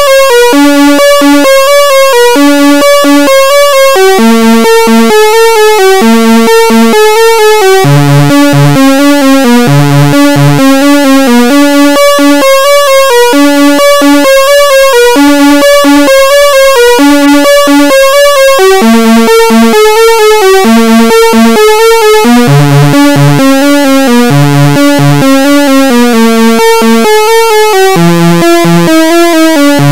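Behringer Crave analog synthesizer playing a repeating sequenced pattern of short notes. The lower notes step to a new pitch every few seconds while the pattern loops.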